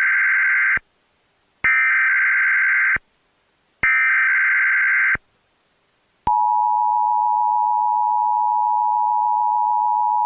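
Emergency Alert System tones: three short bursts of warbling SAME header data tones, then, about six seconds in, the steady two-tone EAS attention signal, marking the start of an emergency alert.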